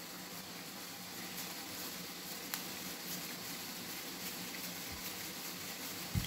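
Faint steady hiss of background room noise, with one soft click about two and a half seconds in and a dull thump near the end.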